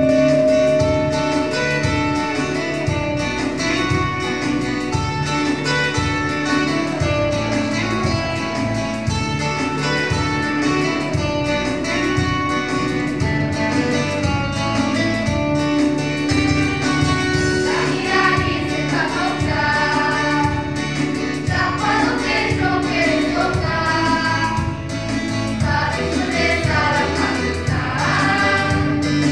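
A group of young women singing a gospel song together over amplified band accompaniment with a steady beat.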